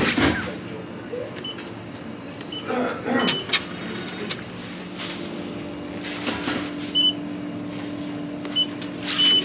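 DIBAL self-service produce scale beeping: several short, high beeps as its touchscreen is pressed, with a thin plastic produce bag rustling on the weighing plate. A steady low hum runs underneath.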